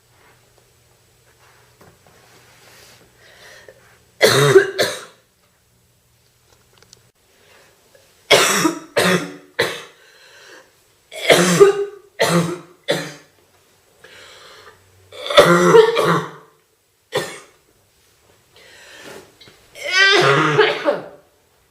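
A girl coughing in repeated fits, each a run of one to four short, loud coughs with pauses between; the last fit, near the end, is a longer cough with some voice in it.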